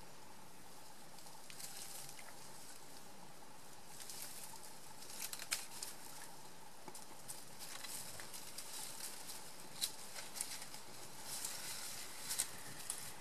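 Raccoon foraging through leaf litter and plants: scattered rustling and crackling in several short spells, with a few sharper snaps.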